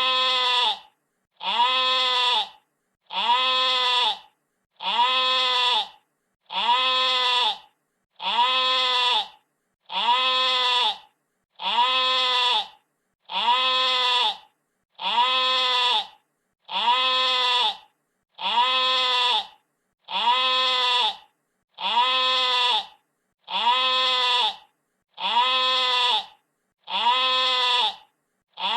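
A sheep bleating, the same single bleat repeated about every 1.7 s, each call about a second long with a slight rise and fall in pitch.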